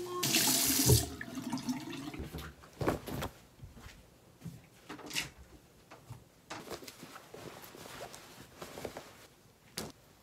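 Clothes rustling as they are changed, with fabric brushing close to the microphone. The loudest swish is in the first second; after it come scattered soft rustles and small clicks.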